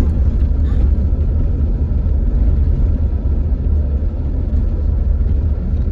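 Steady low rumble of a car driving along a street: engine and road noise.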